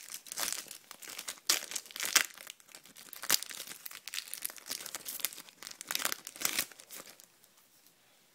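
Foil Topps Match Attax trading-card packet being torn open and crinkled in the hands, a run of sharp crackles and rips that dies away about seven seconds in.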